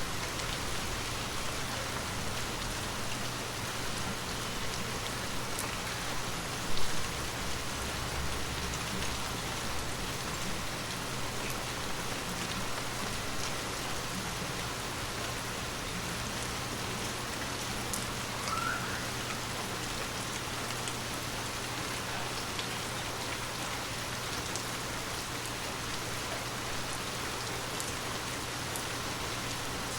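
Water drops tapping on glass in a dense, steady patter like light rain on a window pane, over a faint steady low hum. One louder knock comes about a quarter of the way through.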